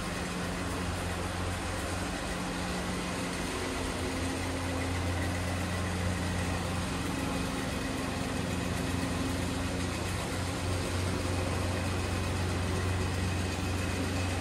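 A steady low hum of a running machine, with an even hiss over it; a second, higher hum note comes and goes.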